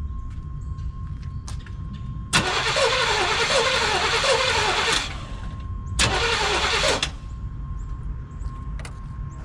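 Starter cranking the 1989 GMC Sierra's engine in two bursts, one of about two and a half seconds and then a shorter one of about a second. The engine does not catch, because no fuel is reaching the injectors.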